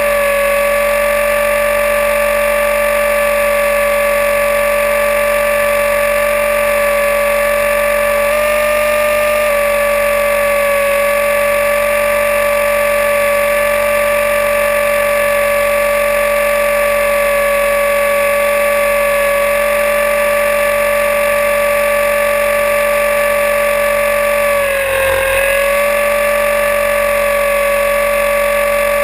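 Align T-REX 500E electric RC helicopter in flight, heard from a camera mounted under its frame: a loud, steady high whine from the brushless motor and drivetrain over a constant hiss of air. The pitch rises slightly about eight seconds in, and dips briefly and recovers near the end.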